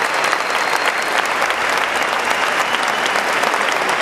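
Audience and performers applauding, a dense, steady clapping.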